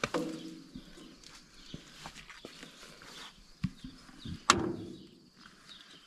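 A few sharp metallic knocks and clanks, the loudest about four and a half seconds in, the first and loudest followed by brief ringing: hand tools knocking against metal.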